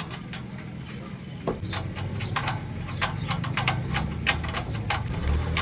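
Kawasaki motorcycle engine running steadily, with sharp, irregular ticks over its low note.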